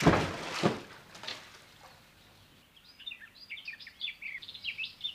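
Water splashing, with two loud splashes close together, then small birds chirping rapidly.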